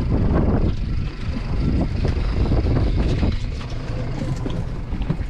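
Low, gusty rumble of wind buffeting the microphone on a boat at sea, with a few faint clicks.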